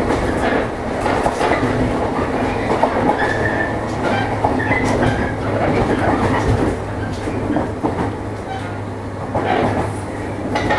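JR East 115 series electric train running, heard from on board: a steady rolling and motor noise with a low hum and wheels clicking now and then over rail joints.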